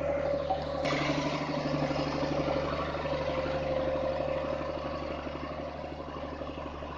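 Massey Ferguson 3085 tractor engine running steadily while pulling a plough, with a rapid even firing beat. There is a single sharp click about a second in, and the engine grows gradually fainter toward the end.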